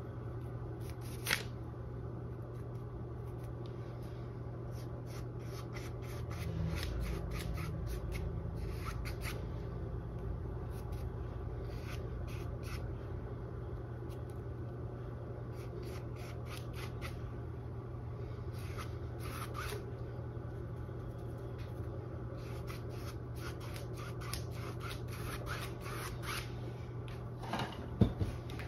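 Large paintbrush scrubbing and sweeping acrylic paint across a canvas in clusters of short scratchy strokes, over a steady low hum. A sharp knock sounds about a second in and again near the end.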